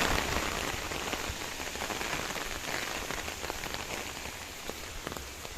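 Steady rain falling, a continuous hiss with scattered single drops ticking.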